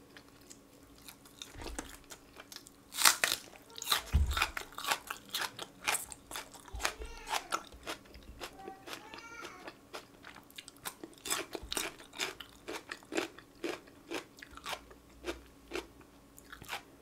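Close-miked eating: fried chicken bitten and chewed, with a run of crisp crunches and wet mouth clicks, the loudest crunch about three seconds in.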